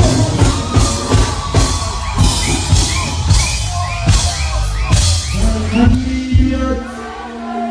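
Live dancehall music played loud through a stage sound system: heavy bass and a steady drum beat with a voice singing over it. Near the end the bass drops out briefly.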